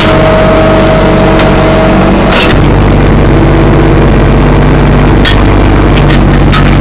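Hitachi 30Z mini excavator's diesel engine running steadily under hydraulic load, heard from inside the cab. A knock about two and a half seconds in, after which the engine note changes, and a few short clicks near the end.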